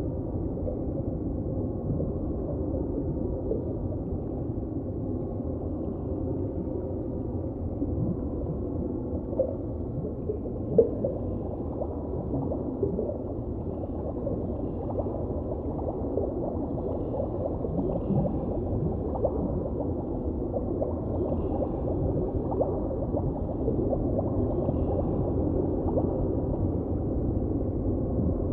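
Steady underwater water sound: a dull, low rushing and gurgling with no high end, dotted with faint ticks and one sharp click about eleven seconds in.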